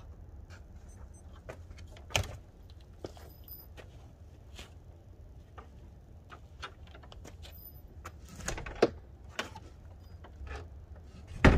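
Wooden shed door swung shut and its latch worked by hand: scattered clicks and knocks, with a cluster about eight to nine seconds in and a sharp knock at the very end, over a steady low rumble.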